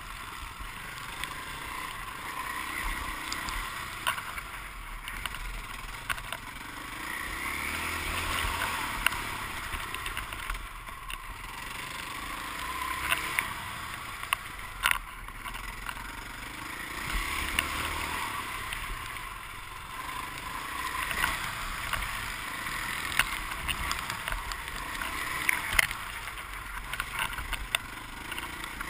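Motocross dirt bike engine heard on board while riding a track, revving up and easing off in repeated swells every few seconds, with wind noise and scattered sharp knocks.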